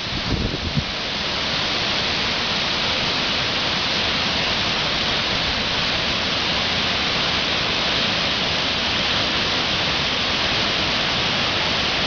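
The Ézaro waterfall on the Xallas river: a steady, even rush of falling water. A few low wind buffets hit the microphone in the first second.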